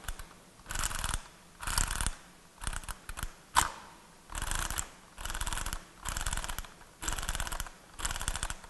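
Split-flap digit cards of a vintage Solari flip clock flipping over as the mechanism is worked by hand. The sound is a series of short, rapid clicking flutters, about one a second, with a single sharper click near the middle.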